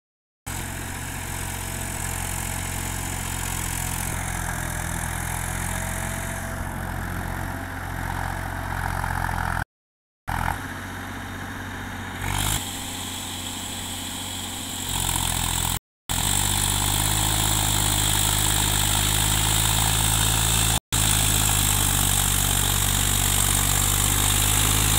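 Massey Ferguson 7250 DI tractor's three-cylinder diesel engine running steadily under load as its rotavator churns a flooded paddy field. The sound cuts out briefly three times and is a little louder after the middle.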